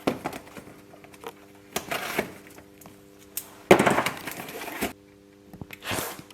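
Packaging being torn open and handled: several crackling, rustling bursts, the loudest lasting about a second a little past the middle, over a faint steady hum.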